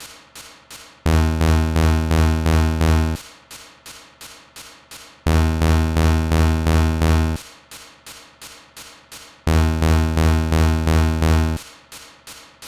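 Synthesized imitation of an MRI scanner sequence. A loud, low, buzzing drone lasts about two seconds and alternates with about two seconds of quieter rapid pulses, roughly three a second, in a strict repeating cycle.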